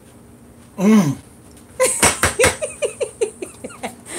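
Laughter: a run of about eight quick, high-pitched 'ha' pulses that fall in pitch, about four a second. About a second in, a short wordless exclamation rises and falls in pitch.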